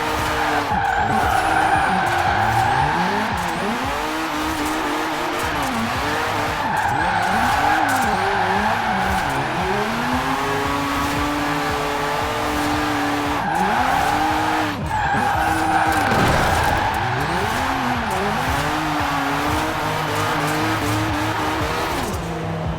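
Mazda RX-7 Spirit R's turbocharged rotary engine revving up and down again and again while drifting, with its tyres squealing in several long stretches.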